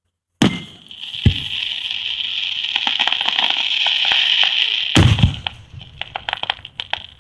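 Aerial fireworks: a couple of booms as shells burst, a steady hiss for a few seconds, then a louder boom about five seconds in followed by rapid crackling.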